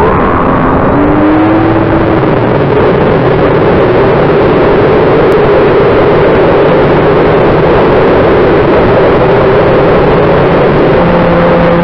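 RC model airplane's twin motors and propellers spooling up and running at takeoff power on the ground roll, heard from the onboard camera with heavy wind and rushing noise. The motor pitch rises over the first couple of seconds as the throttle comes up, then holds steady.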